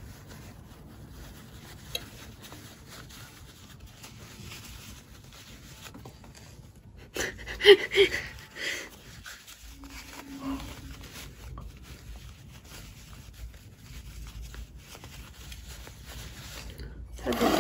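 Faint rustling of cloth mask pieces being handled and turned, with a single click about two seconds in and a short, louder sound about halfway through.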